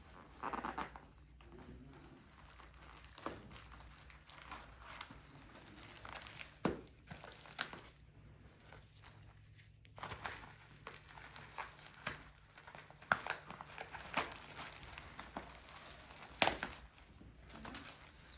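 Plastic package wrapping being crinkled and torn open by hand, in irregular crackles and short sharp rips.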